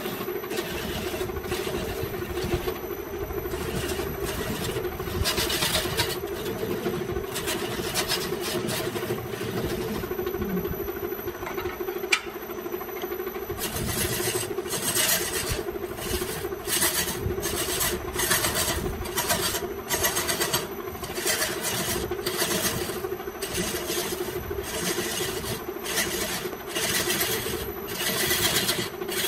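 Wood lathe's electric motor running steadily while a hand-held turning tool cuts the spinning bamboo workpiece. The tool's strokes scrape at irregular intervals at first, then about once a second from about halfway through.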